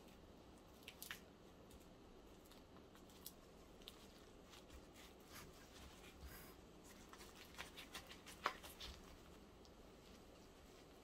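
Near silence: quiet room tone with a few faint, scattered taps and clicks, bunching together from about seven to nine seconds in, the sharpest one near the end of that stretch.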